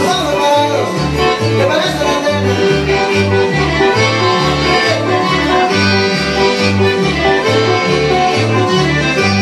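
Upbeat dance music with a bouncing bass that alternates between two notes about twice a second under steady melody instruments.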